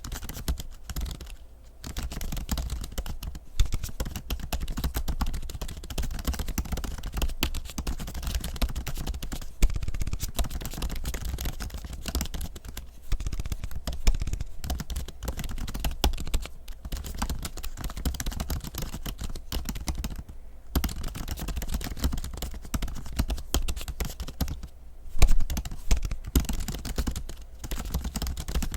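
Typing on an M1 MacBook Pro's built-in keyboard covered with a keyboard skin: a fast, irregular patter of key clicks with a few brief pauses and one louder keystroke near the end.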